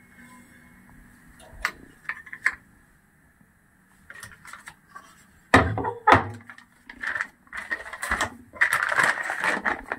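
A few light clinks as a utensil is set down on a steel plate, then a thump and loud crinkling and rustling of a crumpled oiled paper sheet being handled and peeled away from a thinly pressed rice roti.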